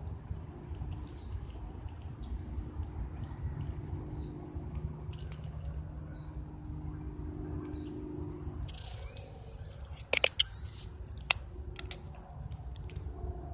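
A squirrel hiccuping: short, high squeaky chirps repeating every second or two over a steady low rumble. A few sharp clicks come about ten seconds in and again about a second later.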